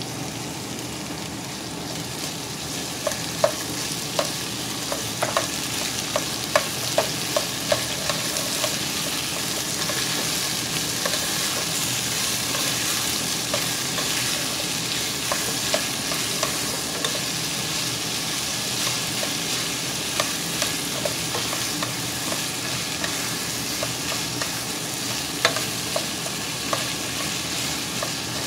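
Potato, carrot and pea chunks sizzling in a large nonstick pot while a spatula stirs them. The spatula knocks and scrapes against the pot in irregular clicks from about three seconds in, with one louder knock near the end.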